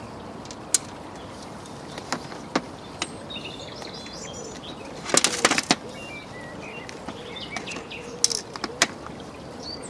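Scattered sharp clicks and taps of a plastic rig box and its rig board as ready-tied rigs are handled, with a quick cluster of clicks about five seconds in. Small birds chirp faintly in the background.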